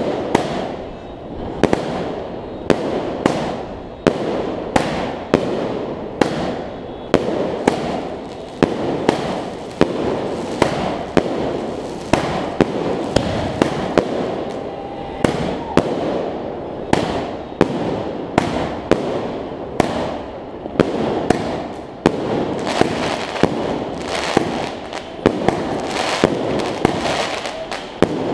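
Big Johnson "Dead Man's Hand" 500-gram 30-shot fireworks cake firing: a steady run of sharp reports, about one every half second to second, each trailing an echo, over continuous crackling.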